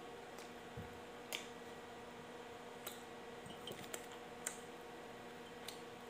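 A few faint, scattered soft clicks and crinkles of bread being torn, handled over a plastic bag and chewed, over a faint steady hum.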